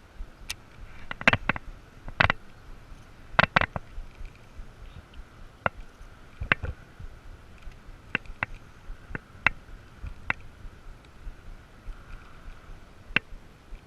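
Irregular sharp clicks and knocks, about a dozen, loudest in a cluster in the first few seconds, over a faint steady hiss.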